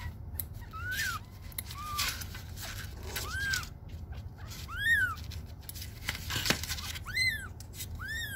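Young kitten mewing repeatedly in distress while it is held to have its claws clipped: about six short, high cries that rise and fall, roughly a second apart. A few sharp clicks come between them.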